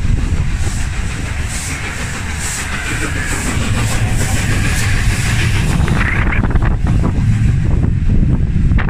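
LNER A4 Pacific steam locomotive 60009 passing close by with its train, a heavy rumble with a quick regular beat from the engine as it goes past, then the coaches rolling by amid hissing steam.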